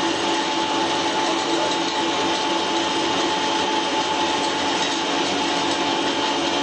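Flat die wood pellet mill running: a steady, loud mechanical noise with a constant whine, unchanging throughout.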